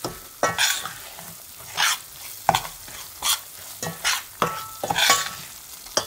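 A utensil scraping and stirring ground moong dal flour around a metal pan, about two strokes a second, some strokes with a brief metallic ring, over a faint sizzle of the flour frying in desi ghee. The flour is being roasted until the ghee separates.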